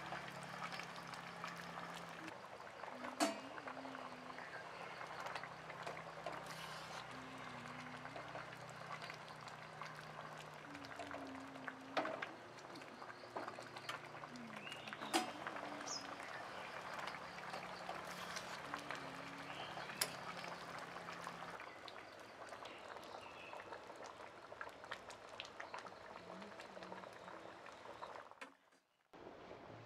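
A pot of lentil, rice and bamboo-shoot broth boiling hard in an aluminium pan: a steady bubbling hiss with a few sharp clicks. The sound cuts out briefly about a second before the end.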